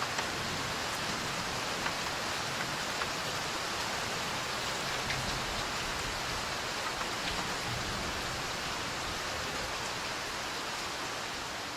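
Steady rain falling: a dense, even hiss with scattered faint drop ticks.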